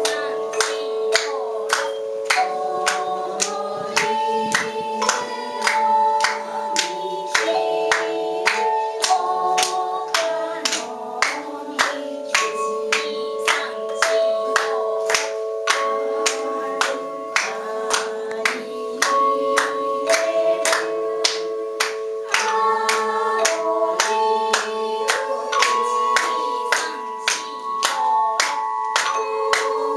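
Tone chimes ringing long, sustained notes of a slow melody, several notes overlapping, with a steady beat of hand claps about twice a second and people singing along.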